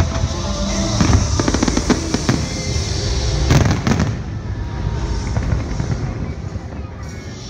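Aerial firework shells bursting in quick succession, a run of bangs and crackle, with music playing underneath. The bangs thin out about halfway through, leaving mostly the music.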